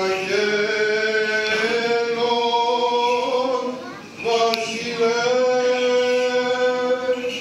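Byzantine chant sung unaccompanied by a choir of chanters, drawn out in long held notes: one phrase fades about four seconds in and a second long note follows.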